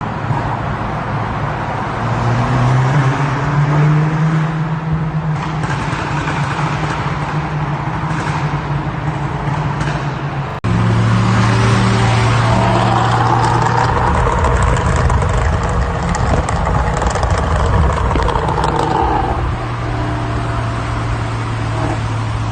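2012 VW Golf GTI Mk6's 2.0 TSI turbocharged four-cylinder running in a tunnel, its exhaust crackling with many sharp pops over the engine note. There is an abrupt cut about ten seconds in, after which it is louder.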